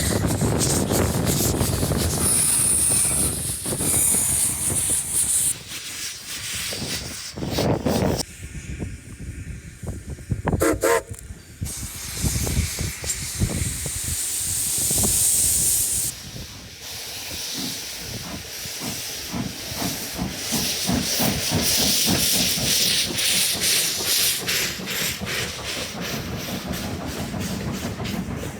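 Steam locomotive with its train, hissing steam loudly. A brief pitched tone, like a whistle, sounds around ten seconds in, and a fast rhythmic chuffing or wheel clatter runs through the second half.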